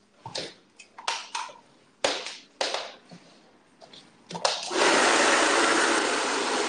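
Handheld hair dryer switched on about three-quarters of the way in and running with a steady blowing noise, drying in the adhesive under a freshly fitted hairpiece. Before it, scattered light knocks and rustles of handling.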